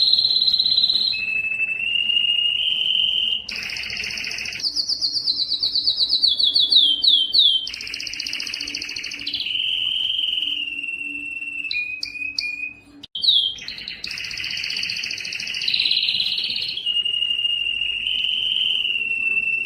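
Domestic canary singing a long song of rapid trills and rolling tours. It switches pitch and pattern every second or two, with one short break partway through.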